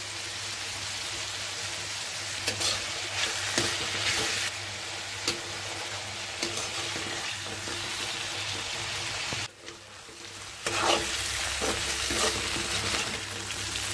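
Chopped bitter gourd, onion and tomato sizzling in hot oil in a kadai while a metal spatula stirs and scrapes through them. The sizzle drops away briefly about ten seconds in.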